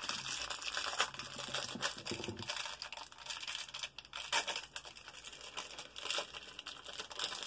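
Thin plastic wrapping of an L.O.L. Surprise! toy ball crinkling and tearing as it is pulled and bitten open by hand: a continuous run of sharp crackles and rips.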